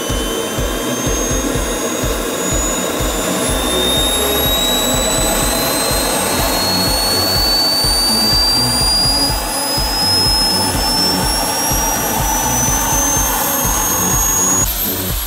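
Kingtech K-160G4 model jet turbine starting up: a high whine climbing steadily in pitch over a steady rumble as the turbine spools up, cutting off suddenly near the end.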